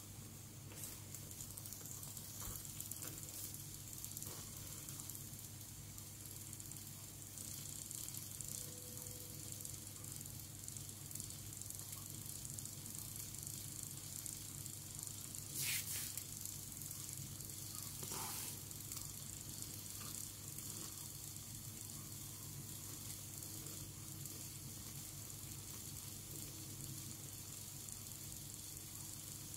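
Steady faint hiss of steam escaping from the jet holes of a homemade tin-can steam turbine heated by a small burner flame, over a low steady hum. Two brief falling whistles, about sixteen and eighteen seconds in, the first the loudest sound.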